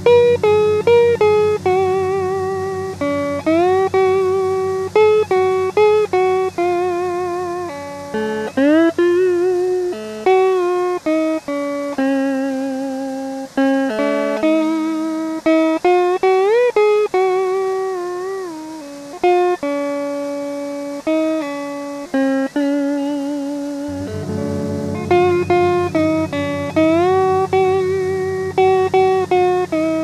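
Instrumental background music: a lead melody of plucked notes with slides and vibrato over a low sustained bass part, which drops out about ten seconds in and comes back about twenty-four seconds in.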